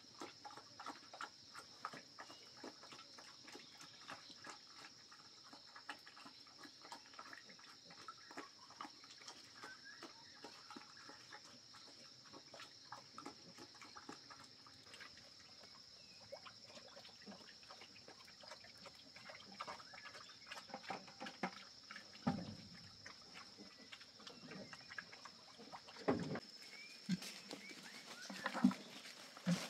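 A pig grunting a few times in the last third, over a steady high-pitched insect drone and many small crackles and clicks.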